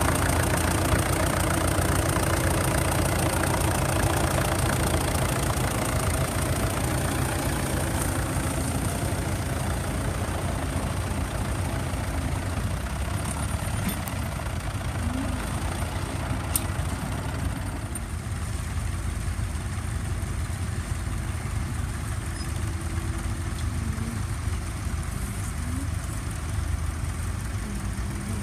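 Vintage tractor engines running steadily under load while pulling moldboard ploughs through the soil, first a blue Fordson and then a red Massey Ferguson. The engine sound drops somewhat a little past the middle.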